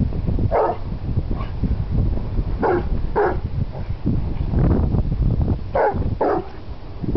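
Young dog giving short, wary alarm barks at something that has spooked it, several of them in pairs about half a second apart.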